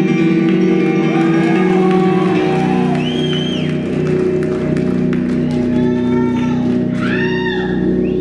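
Music of steady held chords, with audience whoops rising and falling over it several times, the loudest cluster near the end.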